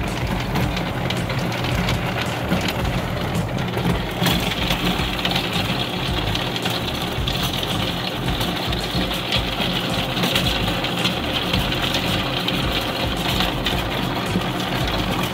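Electric açaí pulping machine running steadily while beating bacaba fruit into pulp, with a louder hiss from about four seconds in.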